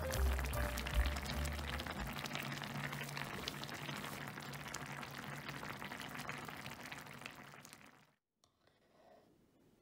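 Korean soft tofu stew boiling hard in an earthenware pot (ttukbaegi): a dense crackle of bursting bubbles that fades away about eight seconds in.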